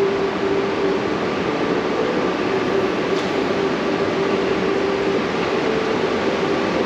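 Steady mechanical hum of a metro-station escalator running, with a held low tone over an even rush of ventilation noise.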